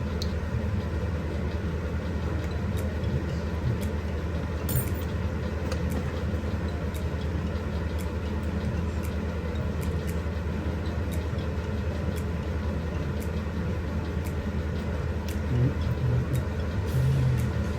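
A steady low mechanical hum of workshop machinery, with a few faint light ticks and a slight swell near the end.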